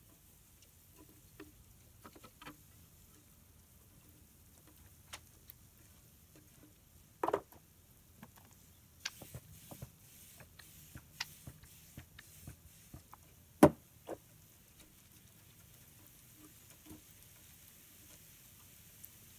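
A plastic spatula taps, clicks and scrapes lightly on a crepe pan as thin pancake strips are lifted off. There are two louder knocks, about 7 and about 14 seconds in.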